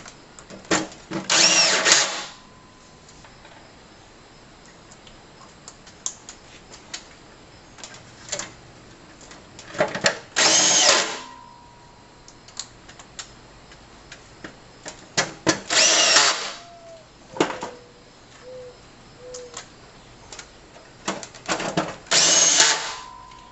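Makita cordless drill driving in the screws that hold a light fixture's reflector, in four short runs of about a second each, with a whine that rises in pitch during each run. Light clicks of screws and metal being handled come between the runs.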